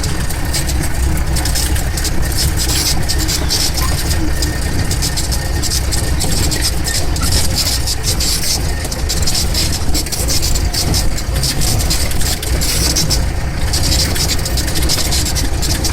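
Jeep engine running while driving: a steady low rumble with a noisy, flickering hiss above it.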